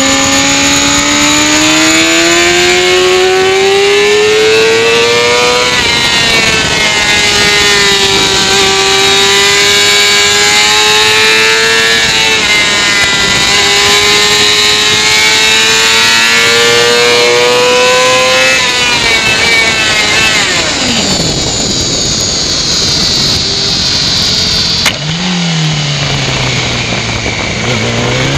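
Motorcycle engine at wide-open throttle on track, heard from the bike itself: it pulls up through the gears, with quick upshifts about six and twelve seconds in. About two-thirds of the way through the throttle closes and the revs fall away under braking and downshifts for a corner, with a sharp click a few seconds later. The engine picks up again near the end.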